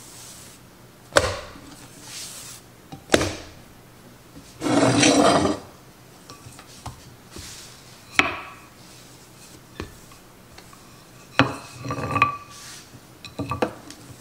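A wooden rolling pin working bread dough on a countertop: several sharp knocks as it is set down and handled, and a rolling, rubbing noise of about a second a little before the middle.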